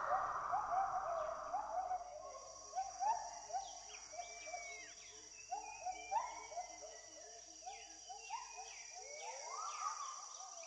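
Tropical rainforest ambience: many birds or other forest animals giving short, mostly rising whistled call notes, several a second, with higher chirps among them, over a steady high insect drone.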